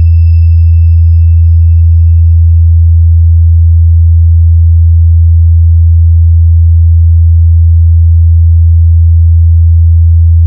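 A deep, loud bass sine test tone held at one steady pitch, used as the bass check of a DJ sound check. A faint high whistle fades out over the first few seconds.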